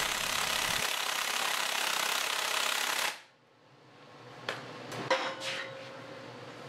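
A 3/4-inch air impact wrench hammering steadily on the big endcap bolts of a hydraulic cylinder, bolts too tight for a half-inch impact wrench to break loose. It stops suddenly about three seconds in, followed by a few light metal knocks.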